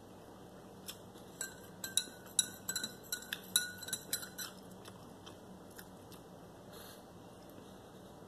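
Metal spoon stirring coffee in a ceramic mug, clinking against the sides in a quick run of ringing clinks for about three and a half seconds.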